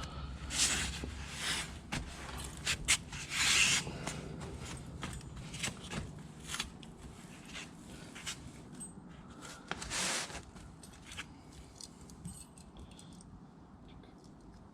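Scattered scrapes and clicks of hands handling tools and parts, the loudest scrapes about a second in, about three and a half seconds in, and about ten seconds in. A low steady hum sits under the first few seconds.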